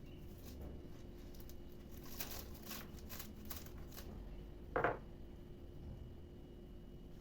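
Faint clicks and rustling of household items being handled, with one louder knock about five seconds in, over a faint steady hum.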